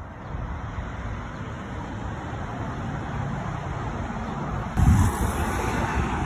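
Steady noise of a low-flying airplane over road traffic, growing slowly louder as it passes. About five seconds in there is a sudden low thump and the sound gets louder.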